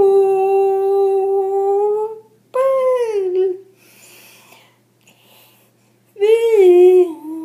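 A woman's voice singing a hymn tune in long wordless held notes: one steady note for about two seconds, a shorter falling note, a faint breathy lull, then another held note near the end.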